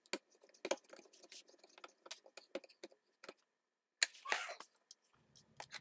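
Light, irregular clicks and taps of a screwdriver working the screw terminals on a metal-cased power supply, with a brief scraping cluster a little past the middle.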